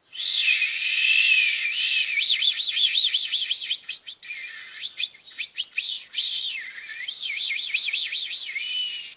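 A bird singing a fast, continuous warbling song of rapidly repeated rising-and-falling notes, with a few brief breaks.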